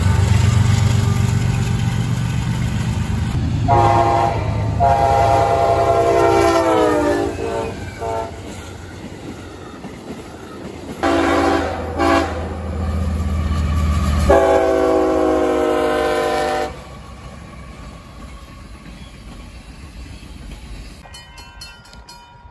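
Diesel freight locomotives rumbling past, their air horns sounding repeatedly: a short blast, a long one that drops in pitch as it passes, two short toots, then another long blast. After that the rumble fades, and near the end a railroad crossing bell starts ringing rapidly.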